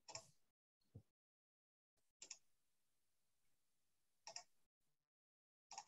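Near silence broken by about five faint, scattered clicks of a computer mouse.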